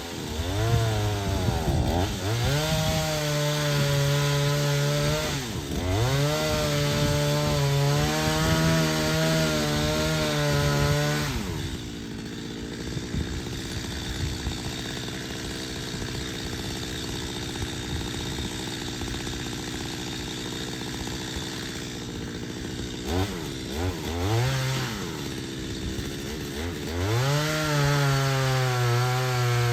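Stihl MS250 two-stroke chainsaw run up to full throttle and cutting into a cedar trunk in two long bursts, with a brief drop in revs between them. It then idles for about ten seconds, is blipped twice and runs up to full speed again near the end.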